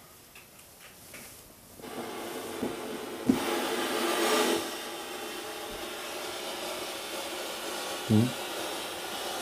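A handheld radio receiver used for spirit-box style EVP listening switches on about two seconds in and gives a steady static hiss. The hiss swells for a moment around the middle, and there is a short click just before the swell.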